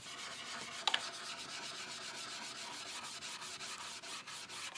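Quick back-and-forth scrubbing of a wooden tabletop's edge with a pad held in a gloved hand, lifting paint softened by chemical stripper: steady rubbing at several strokes a second.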